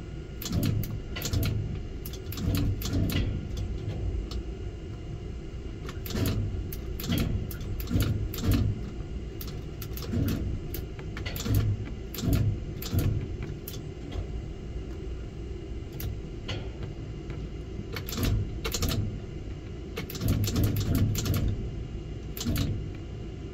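Steady low machinery rumble with irregular sharp clicks and knocks.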